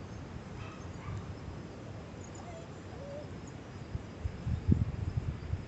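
Wind buffeting the microphone in an uneven low rumble that gusts harder about three-quarters of the way through, with a couple of faint short whines near the middle.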